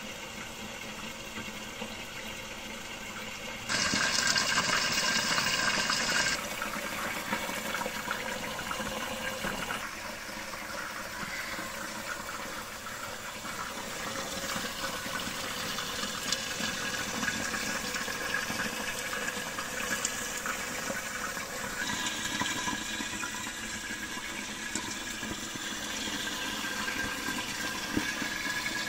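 Frozen chicken pieces sizzling steadily in hot oil in a karahi under a glass lid. The sizzle grows louder for a couple of seconds about four seconds in.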